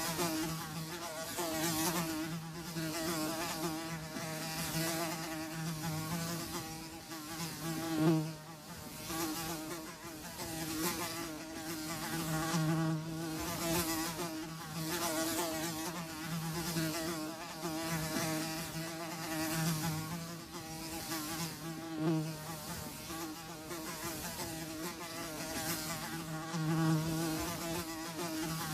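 Flies buzzing, a continuous drone of wingbeats that swells and fades every second or two as the flies pass close and move away.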